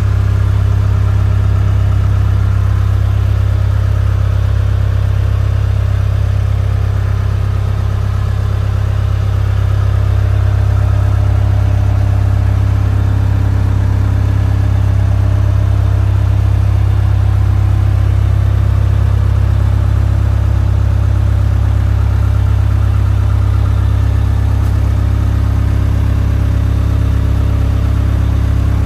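A 1979 Land Rover 109 Series III Santana's engine idling steadily, heard from inside the vehicle's body.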